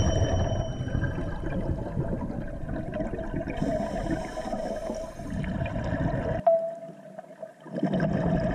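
Underwater sound of a scuba diver breathing: a hiss of inhalation through the regulator and a gurgling rush of exhaled bubbles over a low rumble. A sharp click comes about six seconds in, and the low rumble drops out for about a second.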